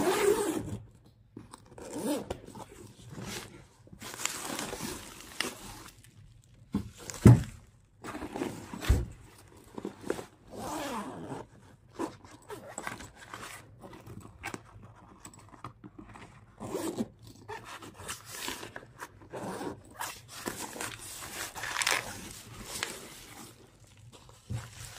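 Zippers on a camouflage fabric crossbow case being pulled open in a series of short, uneven runs, with the fabric rustling as the compartments are handled. Two dull thumps come about 7 and 9 seconds in.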